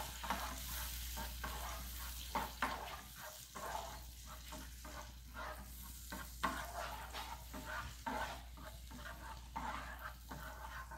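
A black plastic spatula stirring and scraping sour cream through melted butter in a hot frying pan, in quick, irregular strokes, with a light sizzle from the pan.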